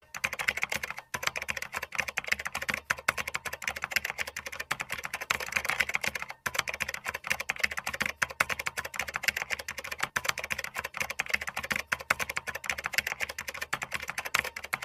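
Rapid computer-keyboard typing clicks, a typing sound effect laid under text being typed out on screen, with brief pauses about a second in and about six and a half seconds in.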